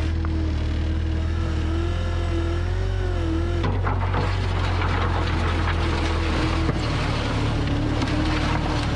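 Excavator diesel engine running steadily under hydraulic load, its whine sagging and rising in pitch as the hydraulics work. About four seconds in, a rough scraping noise joins it for a few seconds.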